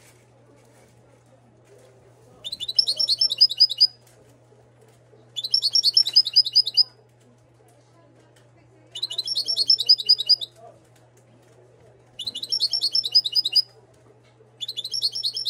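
Caged European goldfinch (Moroccan type) singing in short repeated phrases: five bursts of fast, high trilled notes, each about a second and a half long, with pauses of about one and a half to two seconds between them. The last phrase is cut off.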